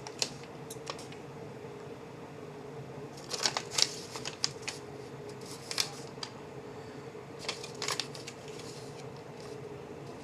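Small clicks and rustles in a few short clusters as a Swiss Army knife is handled, over a faint steady hum.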